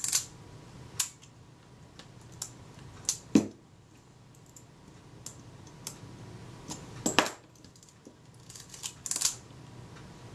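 Scattered small metallic clicks and ticks from a Kodak Retina IIIc's mechanism as it is worked by hand and its film-advance release adjusting screw is turned with a screwdriver. Two sharper clicks, about three and seven seconds in, are the loudest, with a quick run of ticks near the end.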